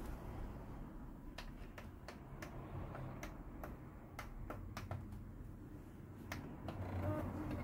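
Scattered sharp clicks and taps from hands working on an open desktop PC case, irregularly spaced, over a faint low hum that swells and fades a few times.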